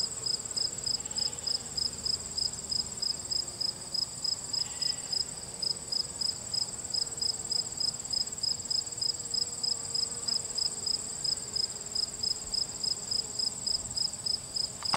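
Singing insects chirping steadily: a high chirp pulsing evenly about four to five times a second, with a continuous higher-pitched trill above it.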